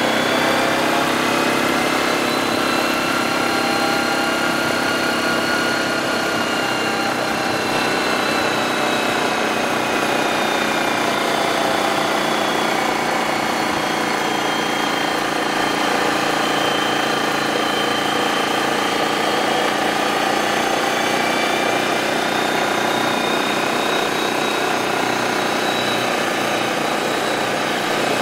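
ATV engine running steadily while riding along a gravel trail, its pitch drifting slowly up and down with speed.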